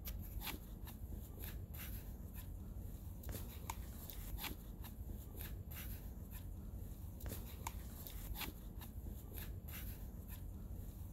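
Faint, irregular clicks and rustles of a bootlace being pulled tight and tied through the metal speed-lace hooks of a boot.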